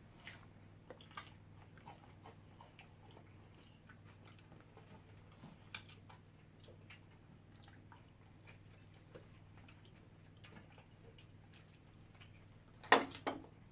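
Eating sounds: faint scattered clicks and taps of cutlery on plates with some chewing, over a low steady hum, and a louder clatter near the end.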